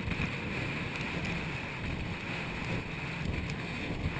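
Steady wind buffeting the action-camera microphone with water rushing under an inflatable banana boat towed at speed, a constant low rumble.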